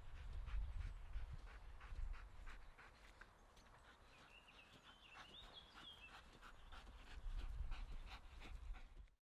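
Dog panting in a quick, steady rhythm, about three to four breaths a second. A bird sings briefly around the middle, and the sound cuts off just before the end.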